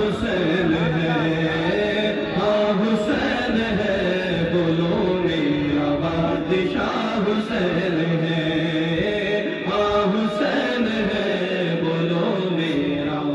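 Men singing a devotional chant into a microphone: a lead voice in long held notes that bend up and down, with a second voice singing along.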